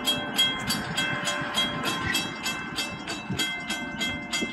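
Railroad crossing warning bell ringing about three strokes a second while the crossing gates lower for an approaching train, stopping near the end.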